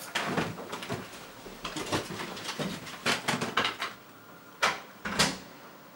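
Footsteps and small knocks as a man walks out across the room, then two sharper knocks near the end.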